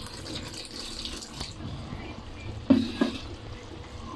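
Water pouring from a plastic pitcher into a wok of stew sauce. About three seconds in come two short, dull knocks, the loudest sounds.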